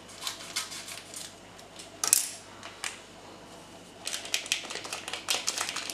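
Hands handling things at a stainless steel mixing bowl: scattered small clicks and taps, a sharper knock about two seconds in, and a quick run of ticks and rustles in the last two seconds. The hand mixer is not running.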